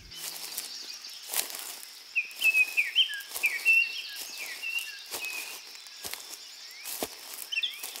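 Small songbirds chirping in a quick run of short calls, with a few crunching footsteps on dry fallen leaves and a faint steady high hiss behind.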